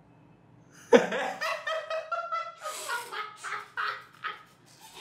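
A man laughing: a burst of rapid, repeated laughs that starts suddenly about a second in and trails off near the end.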